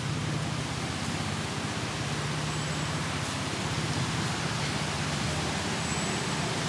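Steady rainfall hissing, with a low steady rumble underneath.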